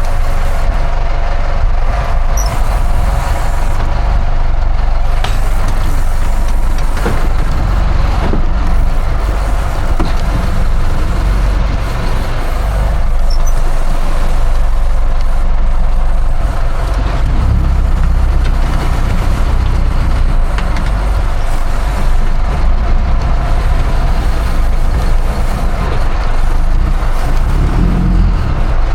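Fishing boat's engine running steadily under way, a continuous low rumble with a steady drone.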